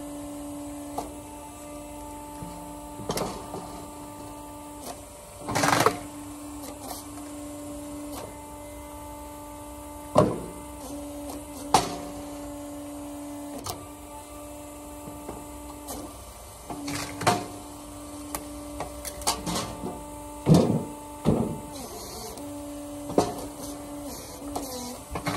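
An electric machine humming steadily while firewood is worked, with irregular knocks and sharp cracks of wood. The hum drops out briefly a few times.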